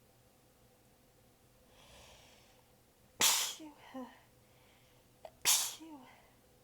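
A person sneezing twice, about two seconds apart, during a sneezing fit. A breathy intake is heard before the first sneeze, and each sneeze is followed by a brief, faint vocal catch.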